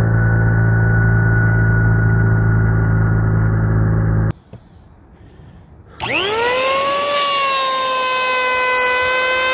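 DeWalt D26676 corded electric hand planer running as it planes a rough pallet board, a steady deep hum. It stops suddenly about four seconds in. After a short pause of a second and a half the motor starts again, its pitch rising as it spins up over about a second, then holding a steady high whine.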